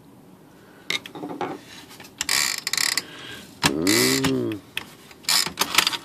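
Smith Corona typewriter's power spacer and escapement mechanism clicking and ratcheting in several bursts as it is tried out, with a brief whir that rises and falls in pitch around the middle. After being tightened, the mechanism doesn't work.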